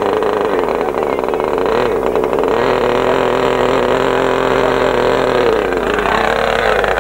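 Small engine of a radio-controlled model airplane running in flight, a steady buzz whose pitch wavers up and down as the plane manoeuvres and drops off near the end.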